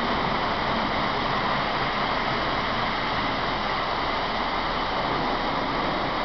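Model train running past close by on its track: a steady, even noise with no breaks or clicks.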